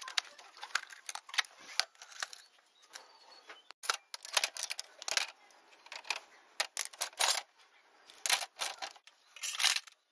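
Old metal hand tools and hardware clinking and clattering as a hand rummages through a bin of them: a run of irregular clicks and clanks, busiest around the middle and again near the end.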